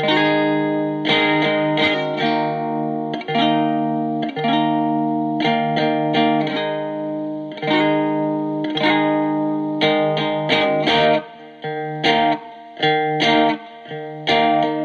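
Electric guitar played through a breadboarded Distortion+ overdrive circuit, with its clipping diodes selected on a diode substitution box. Chords are struck about once a second and left to ring, with a few brief gaps near the end.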